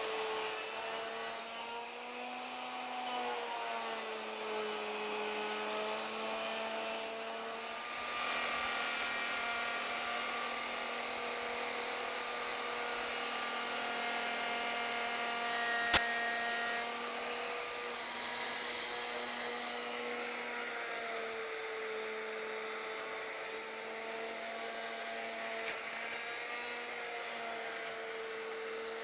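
Router on a Legacy ornamental mill running steadily as its bit cuts a circular moulding in passes, its whine wavering slightly in pitch under load. One sharp click about sixteen seconds in.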